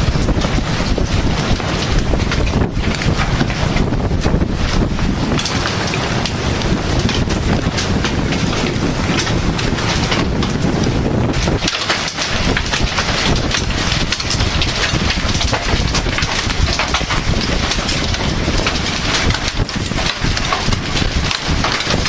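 Strong storm wind gusting and buffeting the microphone, over a dense hiss of many small impacts from falling rain or hail, with a brief lull about halfway through.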